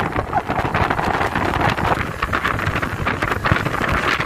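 Wind buffeting the microphone, with road and engine noise from a moving vehicle underneath.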